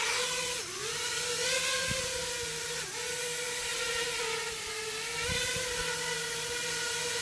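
The brushless motors and propellers of a 5-inch FPV racing quadcopter (iFlight XING-E 2306 2750KV motors on 4S) whine steadily as it lifts off and hovers. The pitch dips briefly about half a second in and again about three seconds in, as the throttle is eased.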